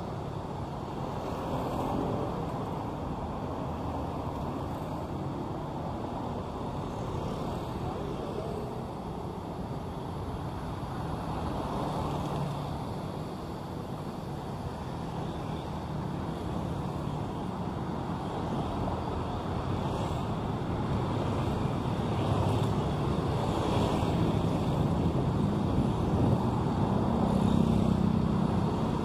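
City street traffic: a steady din of passing vehicles' engines and tyres on the road, swelling louder over the last several seconds.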